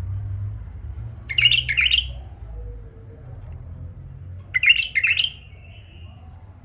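Male bulbul singing two short phrases of quick notes about three seconds apart, the second trailing off in a brief held note.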